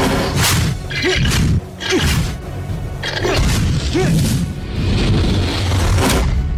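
Cartoon action soundtrack: dramatic music with heavy booming hits and swooshing sound effects, several sudden impacts through the passage.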